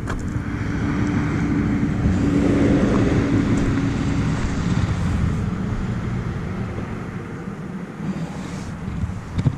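A motor vehicle passing, its noise swelling and then fading over several seconds, with a steady hum through the first half.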